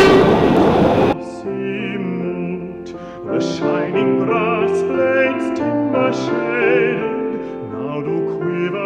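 A narrow-gauge steam train running, its whistle just ending, cut off abruptly about a second in by music: a singer in an operatic style with a wavering vibrato over instrumental accompaniment.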